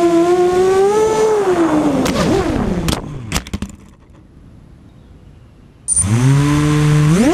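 Racing quadcopter's brushless motors (Cobra 2000kv on Gemfan 6045 props) whining. The pitch drops and wavers as the quad comes down, with a few sharp knocks as it hits the ground about three seconds in. The motors then stop, and about six seconds in they spin up again, rising in pitch and climbing steeply near the end as it throttles up to take off.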